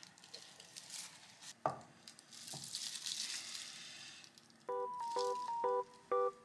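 Kitchen handling sounds on a wooden cutting board: a single knock, then soft rustling like a plastic bag. Light background music with plucked, bell-like notes starts about a second and a half before the end.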